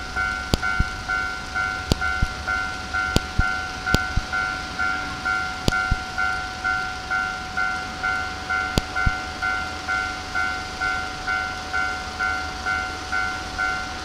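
Japanese railway level-crossing warning bell ringing, its electronic ding repeating evenly about two and a half times a second, with scattered sharp clicks.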